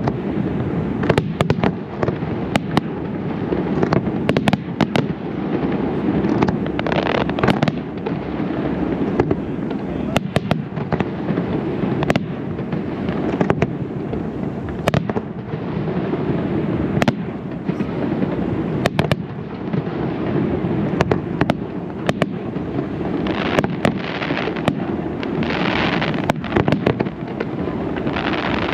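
Aerial fireworks display: sharp shell bursts and bangs come again and again over a constant low rumble, with stretches of denser fizzing crackle about a quarter of the way in and near the end.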